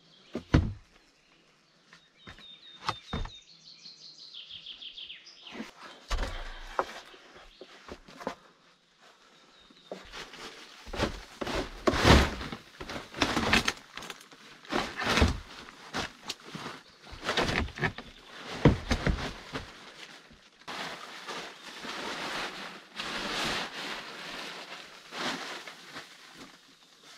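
A bird sings a short run of chirps a few seconds in. Then come repeated knocks and heavy thuds of wooden logs being set against each other along the foot of a log wall, with rustling and scraping between them.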